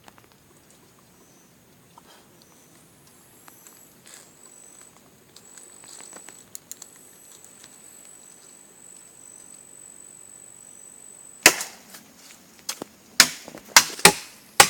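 A blade chopping into a tree trunk: a quick run of loud, sharp strokes, about five or six, in the last three seconds, after several seconds of quiet forest ambience.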